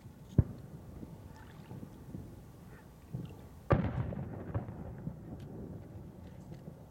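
Aerial firework shell heard from a distance: a sharp thump about half a second in, then a louder bang just before four seconds in that rumbles on for a second or two.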